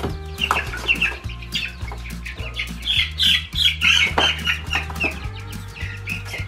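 A crowd of young meat-bird chicks peeping continuously, short high falling chirps overlapping one another, over background music with a steady bass line.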